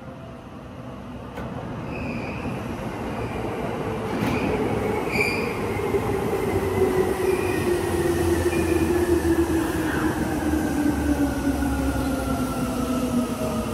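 Electric commuter train running in on a neighbouring track, its motor whine falling steadily in pitch as it slows, over a growing rumble of wheels on rail with some wheel squeal. A few short high chirps sound early on.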